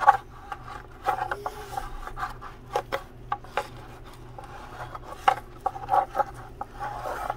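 Chip brush scrubbing wet epoxy onto the inside of a fiber-reinforced plastic RC boat hull: irregular scratchy strokes and light clicks, over a steady low hum.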